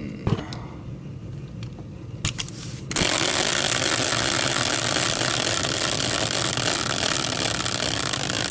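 A few handling clicks, then about three seconds in a hand-spun caster wheel on a wooden block starts whirring loudly and steadily as it spins freely on its axle.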